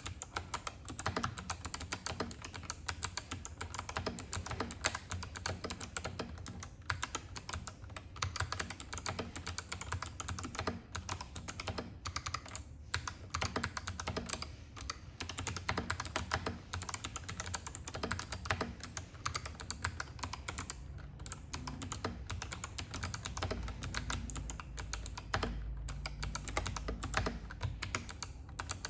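GRKB Brick Vader mechanical keyboard with stock Kailh Box Navy clicky switches being typed on continuously: a dense, fast run of sharp key clicks with a few brief pauses.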